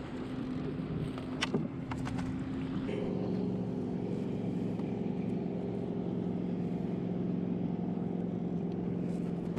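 A kayak's bow-mounted electric trolling motor humming steadily. About three seconds in its hum shifts to a different steady pitch and holds. A couple of sharp clicks sound in the first two seconds.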